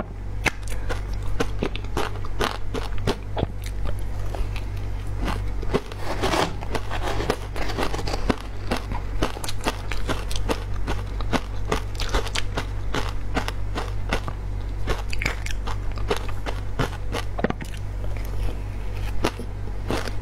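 Crunching and chewing of matcha-powdered ice, close to a lapel microphone: a dense run of sharp, irregular crunches, over a steady low hum.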